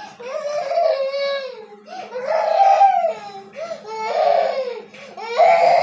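Young child crying, four long wailing cries about a second apart with short breaths between them.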